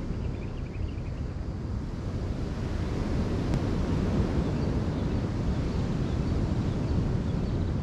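Wind buffeting the microphone over surf washing on a rocky shore: a steady, noisy low rumble, with faint high chirps at times.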